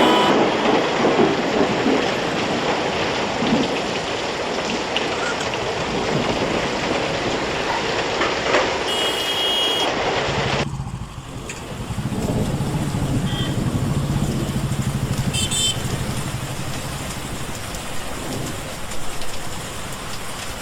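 Heavy rain hissing down on a road, mixed with passing traffic. About eleven seconds in, the sound changes abruptly to lighter rain over the steady low hum of a vehicle engine.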